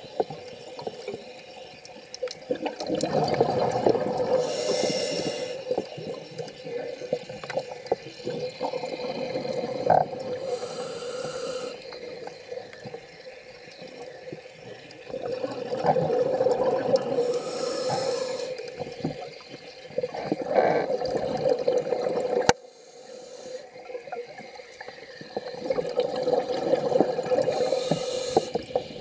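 Scuba diver breathing through a regulator, heard underwater: a hissing inhalation followed by a long bubbling exhalation, repeating roughly every six seconds.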